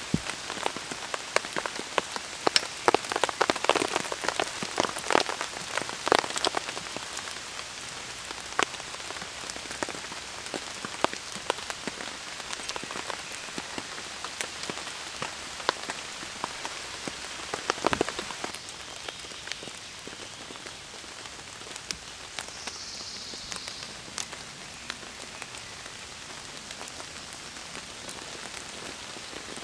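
Steady rain falling in a forest, a constant hiss with scattered sharp drop-like taps that are thickest in the first few seconds. A single louder knock comes about 18 seconds in.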